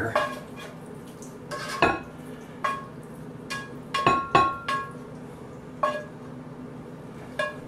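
Ground beef mixture being emptied from a cast iron skillet into a glass bowl: a series of about nine sharp clinks and knocks of utensil and pan against the glass, several ringing briefly, with soft scraping between them.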